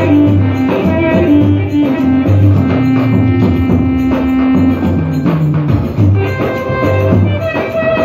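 Live band music led by an electronic keyboard playing a melody over a steady drum beat, amplified through a loudspeaker; one melody note is held for about two seconds midway.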